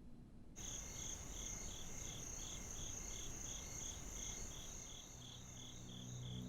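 Crickets chirping, a steady high trill with a pulsed chirp about twice a second, coming in sharply about half a second in. A low drone joins near the end.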